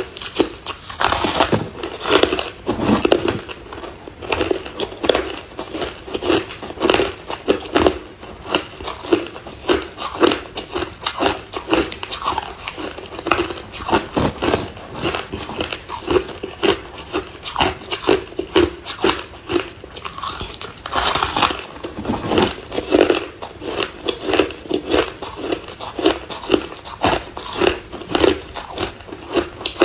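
Crushed ice being bitten and chewed: dense, irregular crunching that keeps on without a break.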